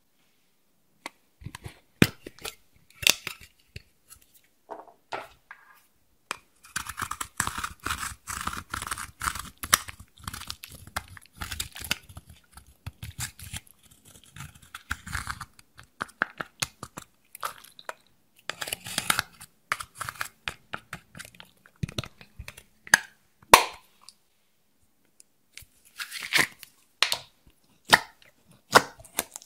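Slime being handled close up: sticky squishing, crackling and popping as it is pressed, poked and stretched. It starts about a second and a half in, as scattered sharp pops with longer spells of dense crackle.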